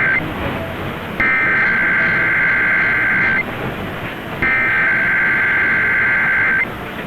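Emergency Alert System SAME header sent over AM radio: the end of one burst and then two more full bursts of buzzy digital data tone, each about two seconds long, with about a second of static between them. It is the header that opens a Required Monthly Test.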